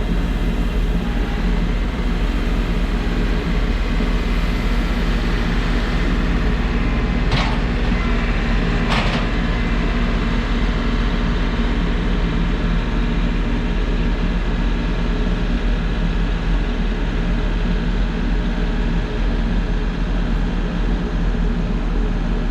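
Engine of heavy paving equipment running steadily at a constant speed, with two brief sharp noises about seven and nine seconds in.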